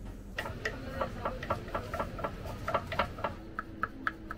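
Knife chopping cooked lamb meat on a wooden cutting board: a quick, even run of knocks, about five a second, starting about half a second in.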